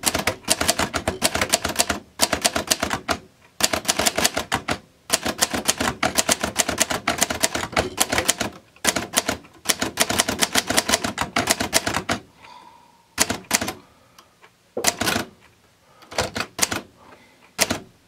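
Typing on a 1962 Hermes 3000 manual portable typewriter: fast runs of typebar strikes with short gaps between words for about twelve seconds, then a few slower, scattered keystrokes.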